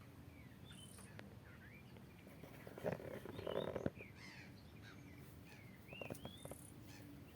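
A few sharp clicks from an Italian stiletto switchblade being flicked open and shut, over birds chirping steadily in the background.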